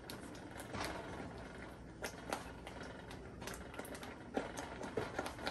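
Thick corn-flour porridge boiling in a pot and stirred with a wooden spoon, giving scattered soft knocks and pops.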